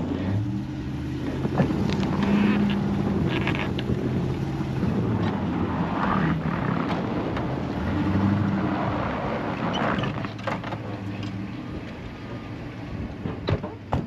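Vehicle engines revving under load in two surges as a stuck pickup is towed off a buried curb by a tow strap, with snow crunching and knocking under the tyres.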